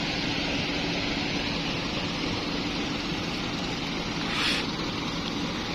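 Diesel engine of a coach bus running with a steady low hum as the bus rolls slowly into the stop. A brief hiss about four and a half seconds in.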